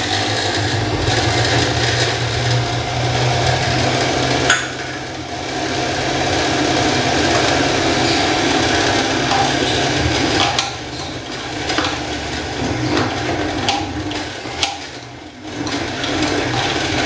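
Countertop blender running, blending the porra ingredients, with the motor dipping briefly about four seconds in and again near the end.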